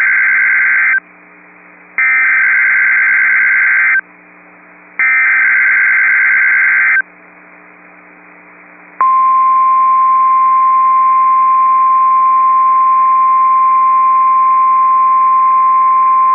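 Emergency Alert System SAME header: three bursts of warbling digital data tones, the first ending about a second in and the others starting about two and five seconds in, which encode the tornado watch alert. After a two-second pause, about nine seconds in, the steady single-pitch NOAA Weather Radio warning alarm tone starts and holds.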